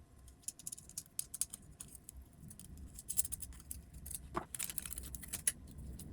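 Small screws and nuts clicking and rattling together with the robot's plate as they are fitted and turned finger tight by hand. The clicks are faint and irregular.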